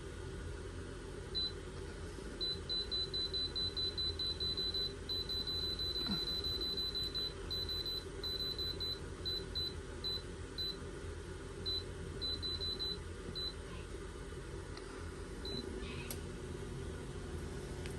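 A string of short, high electronic beeps, about four a second in runs with pauses and one nearly unbroken stretch, over a steady low hum.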